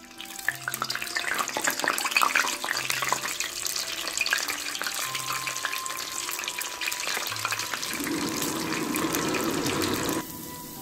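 Kibe deep-frying in hot oil in a wire basket: dense sizzling and crackling with many small pops, which stops abruptly near the end.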